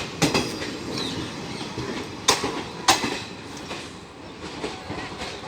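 Passenger train coaches rolling slowly through a station, wheels knocking over rail joints: a steady rumble with a few sharp clacks.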